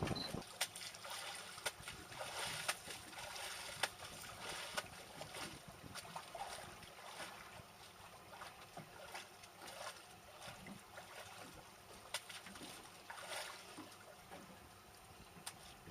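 Water lapping and trickling against a small boat's hull, with many small clicks and knocks scattered through it; it fades gradually.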